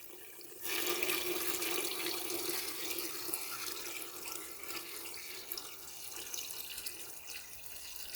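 Water pouring from a one-gallon jug into a turkey fryer pot holding a turkey. It starts about half a second in and slowly eases off. This is the fourth gallon, poured to find the level the frying oil must reach.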